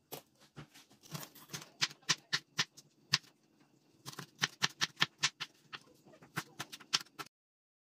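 Kitchen knife chopping green bell pepper on a wooden cutting board: an irregular run of sharp taps, about three a second, with a short pause about halfway through, cutting off suddenly near the end.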